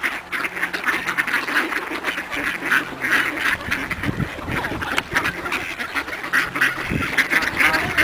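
A flock of mallards quacking and chattering, many short calls overlapping without a break, as the ducks crowd in to be fed.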